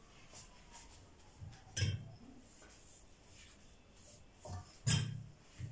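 Kitchenware handling at a round aluminium baking pan: two sharp knocks about three seconds apart and a few softer taps as filo pastry is pressed in and a utensil works in the pan.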